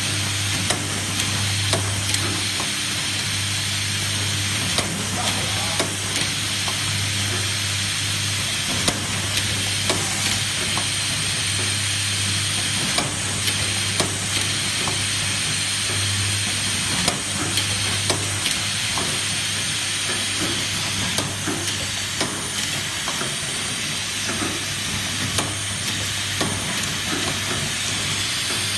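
Automatic saw-blade tooth brazing machine running, heating a carbide tip onto a circular saw blade tooth: a steady hiss over a low hum, with frequent small mechanical clicks. The hum fades about two-thirds of the way through.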